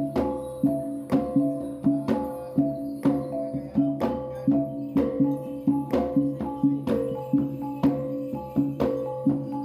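Background music with a steady beat: a sharp percussive hit about twice a second over repeating pitched notes.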